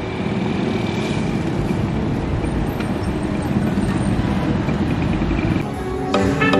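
Steady road traffic noise, a rumble of cars and engines, which gives way to music about six seconds in.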